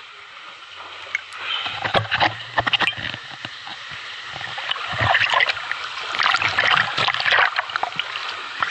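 Water splashing and sloshing close by as a swimmer strokes along with the camera held at the surface. A rushing of falling water from a small waterfall ahead grows louder in the second half.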